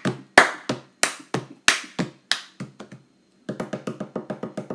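Percussive music cue: a run of sharp hits about three a second, then after a brief pause a quicker rattle of short ticks.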